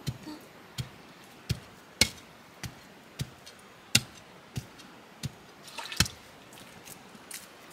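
Knife chopping food on a cutting board: single sharp strokes at an even pace, about one every two-thirds of a second, with a brief patter of lighter taps around six seconds in.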